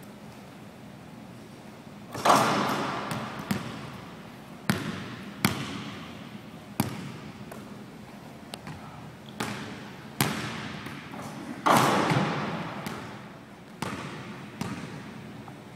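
Basketball bouncing on a hardwood gym floor, single sharp thuds that echo around the hall. Two louder crashes with a longer ringing tail, about two seconds in and again about three-quarters of the way through, fit the ball and rim shaking on a dunk.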